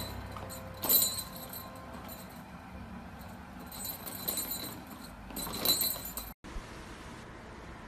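Short bursts of light clinking and rattling, three or so, as a puppy tugs a wheeled plastic pull-along duck toy by its string. The sound cuts off suddenly near the end, leaving a faint steady hiss.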